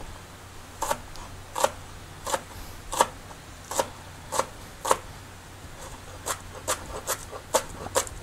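Steel cleaver chopping spring onions on a plastic cutting board: single sharp chops about one every 0.7 seconds, coming faster in the last two seconds.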